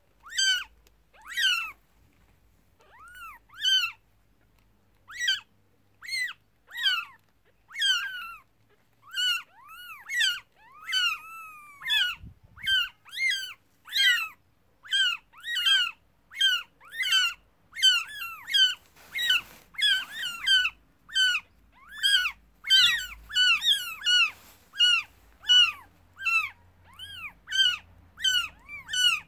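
Five- to six-day-old kittens mewing: short, high-pitched cries that rise and fall in pitch, spaced out at first, then coming rapidly and almost without a break from about a third of the way in.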